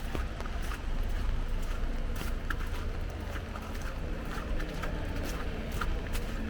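Street ambience of a walk in the rain: steady wind rumble on the microphone, with scattered sharp ticks at irregular moments.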